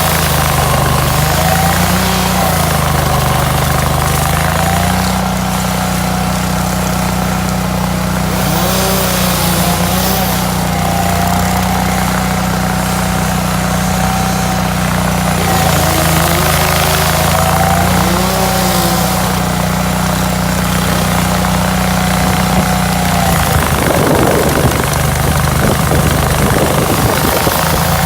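Hydraulic stump grinder's engine running. Its pitch wavers up and down for the first few seconds, then holds steady, with a higher wavering whine above it. The sound turns briefly rough and noisy near the end.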